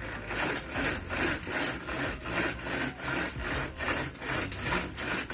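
Rhythmic knocking or rattling, about three strokes a second, each with a little high ringing.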